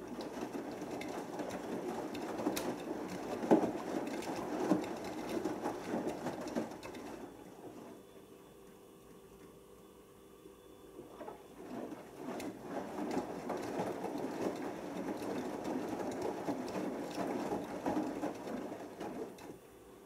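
Beko Excellence WMB81445L front-loading washing machine in the main wash of a synthetics cycle: the drum tumbles the wet laundry for about seven seconds, rests for a few seconds, then turns again for about eight seconds, as in its normal back-and-forth wash action.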